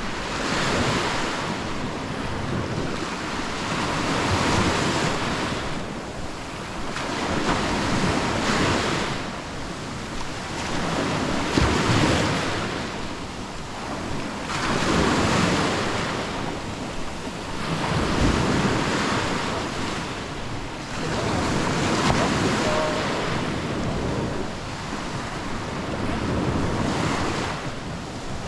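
Small sea waves breaking and washing up the beach, surging and falling back about every three to four seconds. Wind buffets the microphone now and then.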